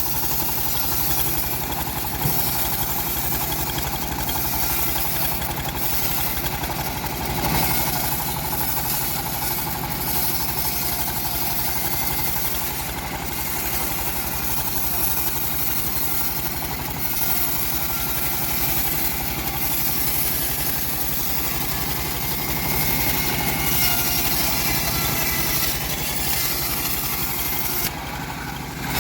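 Homemade bandsaw mill running steadily, its band blade sawing through hard teak wood.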